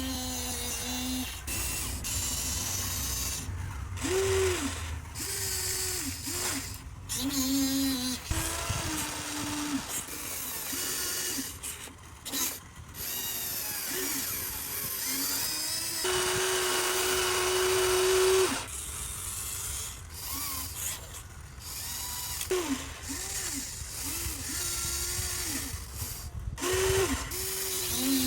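Huina RC excavator's small electric motors whining in short bursts as its boom, arm and bucket move. There is one longer steady whine of about two and a half seconds midway through.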